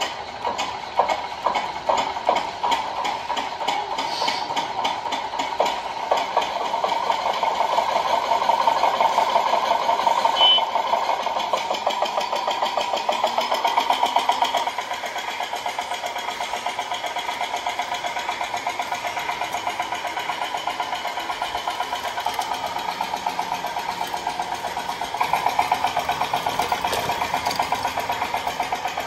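Radio-controlled model vehicle running, with a rapid, even engine-like pulse that grows louder over the first ten seconds or so, drops suddenly about 15 seconds in and picks up again near the end.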